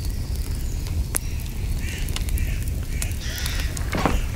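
Wood fire crackling in a round-mouthed metal firebox, with many sharp pops over a steady low rumble; the wood is not fully dry after rain. A few short rasping noises come near the middle and just before the end.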